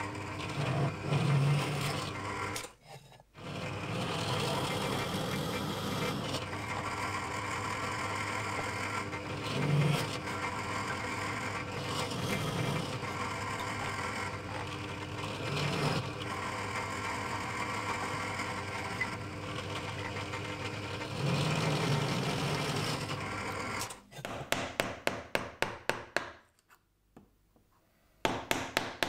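Bench drill press running, its bit boring into a wooden workpiece, the cutting sound swelling every few seconds. Near the end the running stops and a rapid series of sharp taps follows as a chisel cuts out a mortise in the wood.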